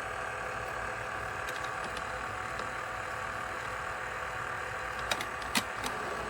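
Eureka robot vacuum running with a steady motor hum and whine. Three sharp clicks come near the end.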